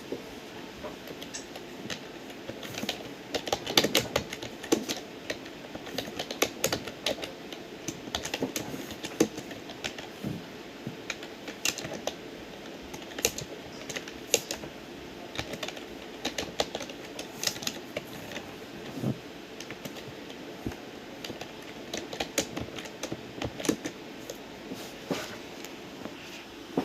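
Typing on a computer keyboard: irregular runs of key clicks with short pauses, over a faint steady hum.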